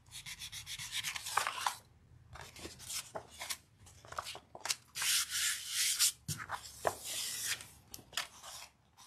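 Hands rubbing and smoothing a sheet of paper down onto a gel printing plate, then peeling the print away and handling the paper prints: repeated dry rubbing and rustling strokes of uneven length.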